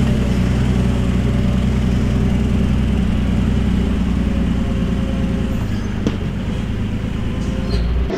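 Mercedes Unimog U1700L truck's diesel engine running steadily as the truck crawls down a steep dirt track, held back on its exhaust brake. A single short knock comes about six seconds in.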